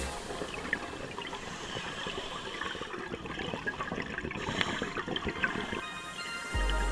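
Underwater ambience on a dive: dense, irregular crackling clicks over a wash of water noise.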